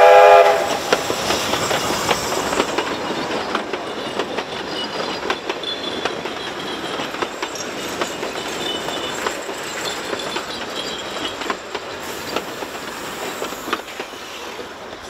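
A steam locomotive's five-chime whistle cuts off within the first half second. Then a train runs past: carriage wheels click over rail joints with short high flange squeals, fading slowly toward the end.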